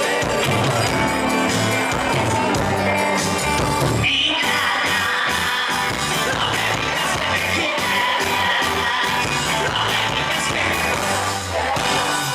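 Loud band music with singing, changing abruptly about four seconds in to a brighter, denser section.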